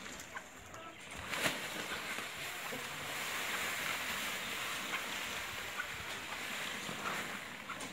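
Loose dry bedding poured from a woven plastic feed sack onto a concrete floor: a steady hiss of pouring grains with the sack rustling, starting just after a sharp knock about a second and a half in.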